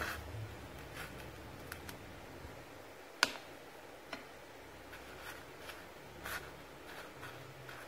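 A metal spoon clicking and scraping against a glass bowl and a plate as banana pieces are coated in batter and breadcrumbs: a handful of light clicks, the sharpest about three seconds in, over quiet room noise.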